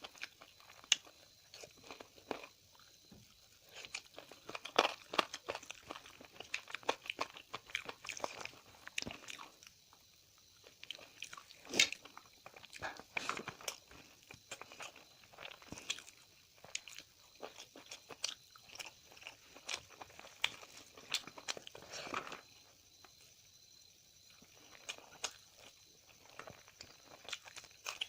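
Close-up eating sounds: a person chewing and taking crunchy bites, with irregular clicks, crackles and smacks. There are brief lulls about ten seconds in and again a little past twenty seconds.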